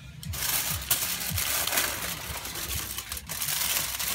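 Aluminium foil crumpled up by hand, a continuous crackling crinkle that starts a moment in and keeps on.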